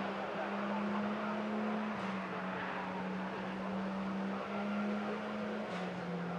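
Mazda Roadster (MX-5) race cars' four-cylinder engines running at speed through a corner, heard from trackside. It is a steady engine note that holds, then jumps up or down in pitch a few times, over a haze of tyre and wind noise.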